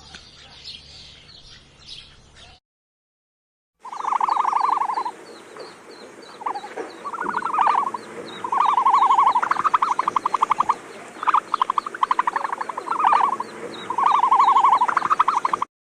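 Birds chirping faintly, then after a short silent gap, frogs calling. Each call is a loud pulsed trill lasting one to two seconds, repeated many times over fainter calls behind.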